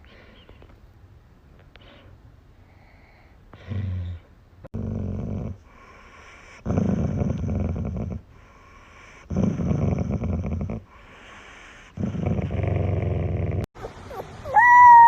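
A dog making low, rough, throaty sounds in five bursts, each about a second long with short gaps between them. A higher pitched, drawn-out call starts right at the end.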